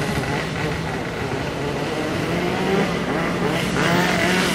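A motor engine running steadily with a low hum, growing harsher and louder near the end.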